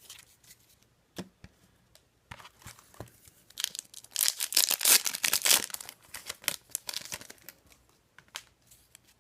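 A hockey card pack's wrapper being torn open: a few handling clicks, then a dense crinkling tear for about three seconds in the middle, tailing off into light rustles.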